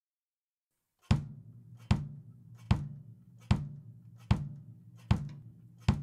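Kick drum of a drum kit played alone in a slow, steady pulse, one beat every 0.8 seconds, starting about a second in. Each beat has a sharp attack and a low, ringing boom that fades before the next.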